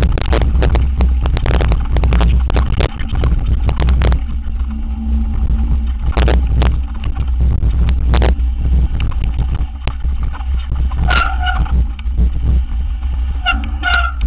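Downhill mountain bike ridden fast down a rocky gravel trail, with wind buffeting a bike-mounted camera's microphone as a heavy rumble. The bike and tyres rattle and clatter over rocks, densely through the first few seconds and in bursts later. Short high squeals come about eleven seconds in and again near the end.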